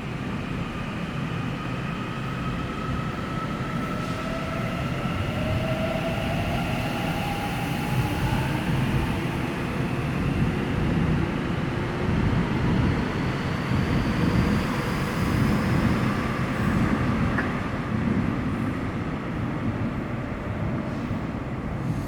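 Seoul Subway Line 7 electric train (old second-batch set 725) pulling away from a station. Its traction motor whine climbs steadily in pitch as it accelerates, over a steady rumble of wheels on the rails that grows a little louder.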